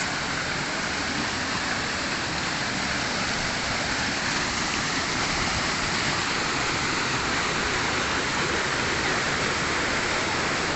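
Waterfall pouring steadily into its pool, an even rushing of water.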